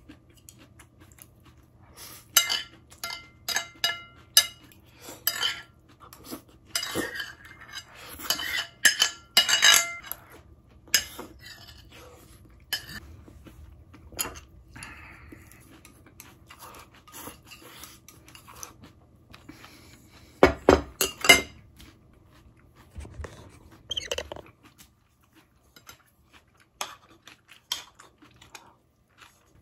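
Metal spoon clinking and scraping against ceramic tableware while eating. There is a flurry of sharp, ringing clinks over the first ten seconds and another cluster about twenty seconds in, with quiet stretches between.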